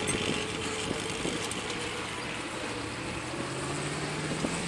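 A military vehicle's engine running steadily, its pitch rising a little in the last second or so.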